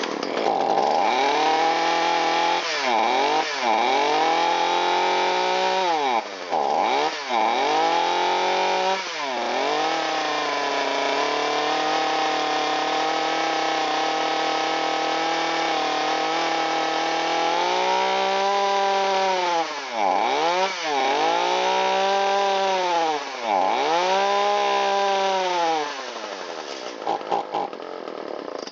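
Echo CS370 two-stroke chainsaw engine running, its speed dropping sharply and picking back up several times, with a steady stretch in the middle, then running lower and unevenly before it stops at the very end. The engine won't take throttle, which the owner puts down to leaking crankcase seals.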